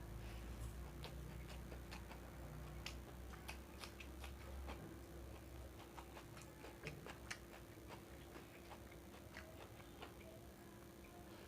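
Faint, irregular mouth clicks and smacks of someone chewing fried rice close to the microphone, over a steady low hum.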